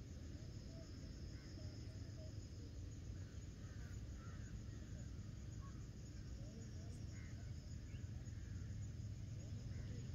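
Evening outdoor ambience: a steady high-pitched insect trill, with short bird chirps scattered through it, over a steady low rumble.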